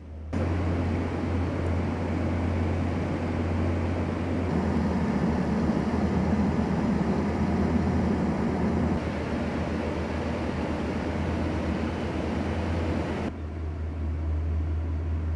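Heavy drilling-rig machinery running steadily: an engine's low hum under a broad mechanical noise, growing louder and dropping back at a few points.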